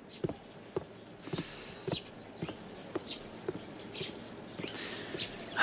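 Footsteps at a steady walking pace, about two steps a second, with a couple of soft swishes of cloth.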